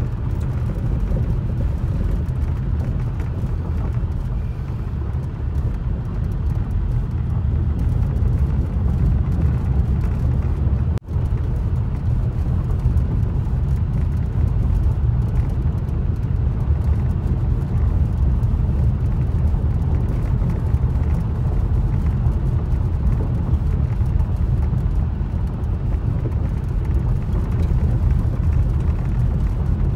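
Car driving, heard from inside the cabin: a steady low rumble of engine and road noise. It cuts out for an instant about eleven seconds in.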